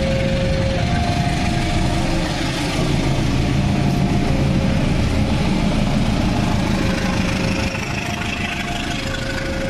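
KAI CC201 (GE U18C) diesel-electric locomotive passing close by, its diesel engine running loud, then the lighter rumble of passenger carriages on the rails once it has gone by, about eight seconds in. Throughout, a level-crossing alarm sounds a two-note tone, alternating high and low.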